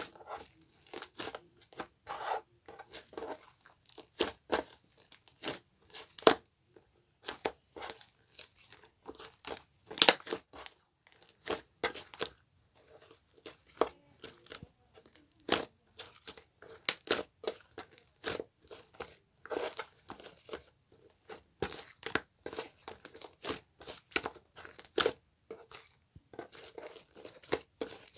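Close-up crinkling, crackling and tearing sounds with many sharp, irregular clicks, as of something being handled and torn.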